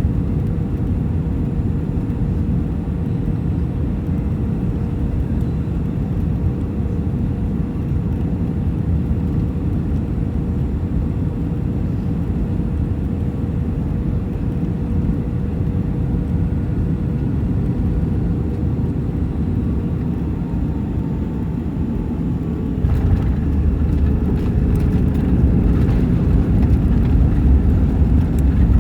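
Airbus A320 cabin noise heard from a window seat: a steady low rumble with a faint steady hum. About 23 seconds in the rumble grows louder, with a few knocks, as the jet touches down and rolls out.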